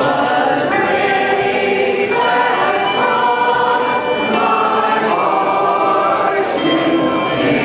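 A group of voices singing together, with held notes that move from one to the next about every second.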